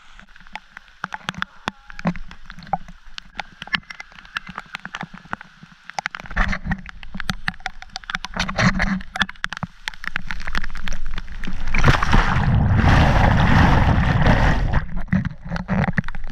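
Heavy rain hitting the camera, heard as many rapid, irregular sharp ticks. A louder rushing noise swells for about three seconds, about twelve seconds in.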